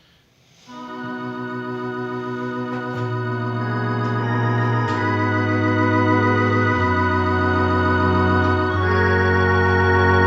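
Electronic organ playing sustained chords over a bass line that changes note every couple of seconds. It comes in about a second in and grows steadily louder. Its voice is the Tecsony sound system installed in the organ.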